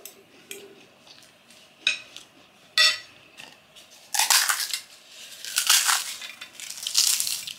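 A metal spoon and fork clink twice against a ceramic plate, then a large puffed fried corn snack (dhungre chips) crackles and crunches in several bursts as it is broken apart by hand, starting about four seconds in.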